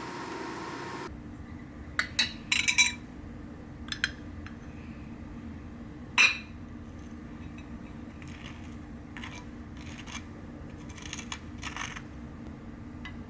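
Scattered clicks and clinks of small hard objects being handled, a cluster of sharp knocks about two to three seconds in and a loud single one about six seconds in, over a low steady hum.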